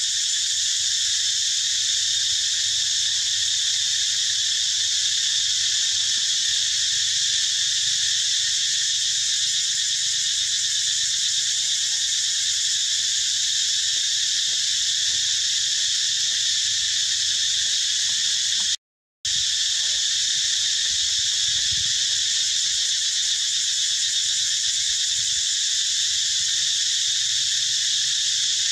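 A dense, steady insect chorus, high-pitched and unbroken, cutting out for a moment about nineteen seconds in.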